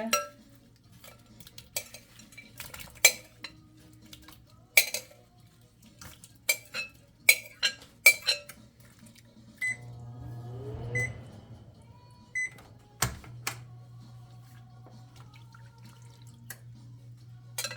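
Dishes and utensils clinking and knocking, a dozen or so separate strikes, over a steady low hum. A short rising tone sounds a little before halfway.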